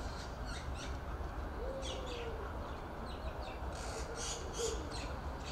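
Faint open-air ambience: a steady low rumble, with scattered short high chirps and a faint drawn-out call about two seconds in.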